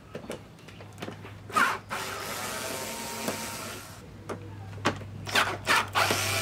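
Small cordless electric screwdriver whirring as it backs out Phillips screws from a scooter's under-seat panel, in two runs: one about two seconds in, lasting about two seconds, and another starting near the end. A few knocks and clicks of handling come between.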